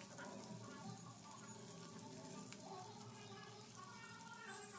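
Near silence: only faint background sound.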